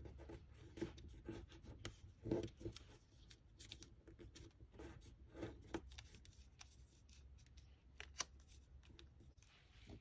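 Faint rustling and crinkling of a small sheet of origami paper as fingers fold it and press the creases flat, with a few sharper crackles, the loudest about two seconds in.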